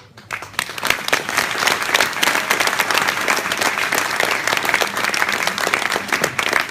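Audience applauding: many hands clapping together, swelling over the first second and then holding steady.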